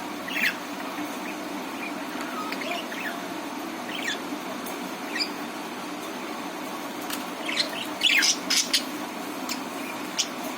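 Budgerigars chirping in short, scattered sweeping calls, with a quick burst of louder chirps about eight seconds in, over a steady low hum.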